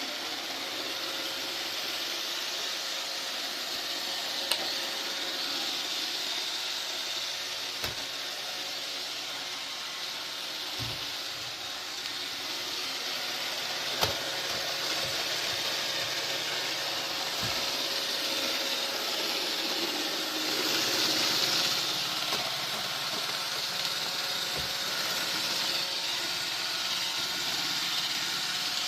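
Vacuum cleaner running steadily with an even, airy hiss, with a few short knocks and clicks scattered through.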